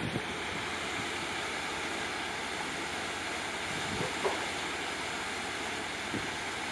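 Steady rushing noise of wind and choppy water on a lake swollen by a typhoon, with a faint low thump about four seconds in.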